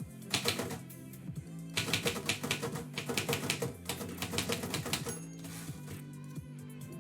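Typewriter keys striking in quick runs: a few strokes at the start, then a dense flurry of typing from about two seconds in lasting about three seconds, then a pause. Background music plays underneath.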